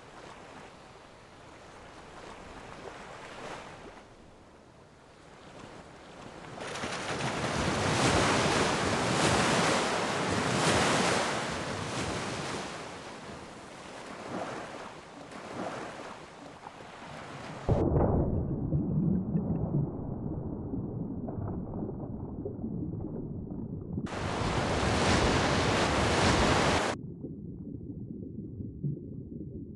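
Ocean-wave sound effect: surf noise swelling and ebbing in slow surges. About two-thirds of the way through it turns suddenly muffled and rumbling, broken by one brief full, clear wave surge of about three seconds near the end.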